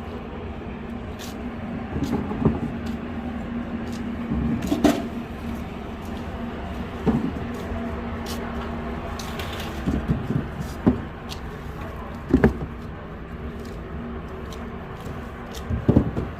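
Dongsi persimmons and packing boxes being handled: scattered knocks and clatters over a steady low hum.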